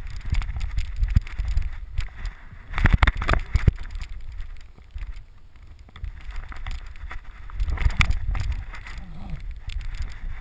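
Low rumbling handling and wind noise, with scattered knocks and clicks, from a GoPro mounted on a moving Rhodesian ridgeback as the dog's movement jostles the camera. It is loudest about three seconds in and again about eight seconds in.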